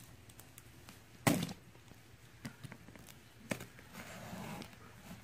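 Utility knife slitting the packing tape on a cardboard box, with a sharp knock against the box about a second in, a few lighter ticks, and a soft scrape of the blade along the seam near the end.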